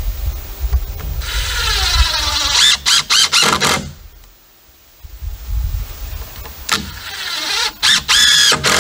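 Cordless driver running two screws into a wooden 2x4 rail and post. The motor whines up in pitch as each screw drives in and stops as it seats. The first screw goes in about a second in, the second about five and a half seconds in, with a short pause between.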